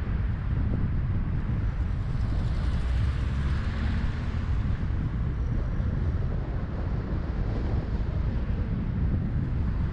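Dust-storm wind buffeting the microphone, a gusty low rumble. A passing vehicle's noise swells and fades about three to four seconds in.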